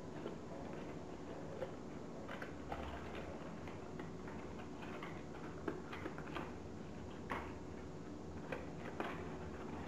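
Folded paper Fujiyama origami modules handled and slotted together, giving short sharp paper clicks and taps at irregular intervals over a steady background hiss.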